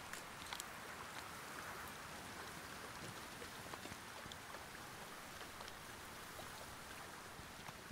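Faint water ambience: a steady, gentle trickle of a shallow stream, with scattered light drips and ticks.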